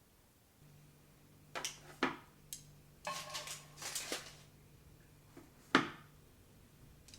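Kitchen handling sounds: a few sharp knocks and clinks of dishes or utensils, the loudest near the end, with a short run of clatter in the middle over a faint steady hum.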